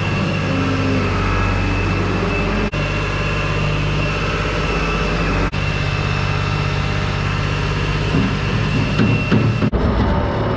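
Skid loader engine running steadily while its bucket tips feed into a feed bunk, with some irregular clatter near the end.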